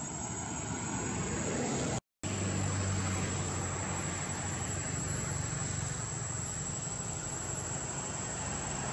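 Steady outdoor background noise: a low engine-like rumble with a thin, steady high-pitched whine over it. The sound cuts out for a moment about two seconds in.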